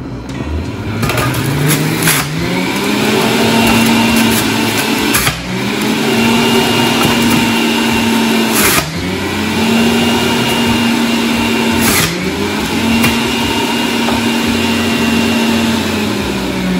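Breville Juice Fountain Elite centrifugal juicer running with a rising whine as the motor spins up about a second in, then loaded with beet: about every three to four seconds the pitch sags with a sharp crunch as a beet chunk is pushed into the spinning cutter disc, recovering its speed each time.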